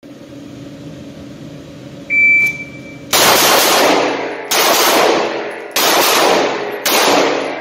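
A shot timer beeps once. About a second later a Springfield Hellcat 9mm pistol fires in four loud clusters of rapid shots, roughly a second apart, each ringing out in the reverberant indoor range.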